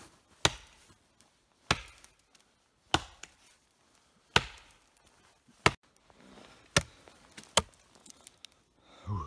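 Axe chopping wood: about seven sharp strikes, roughly one every second or so, with a few lighter knocks between them.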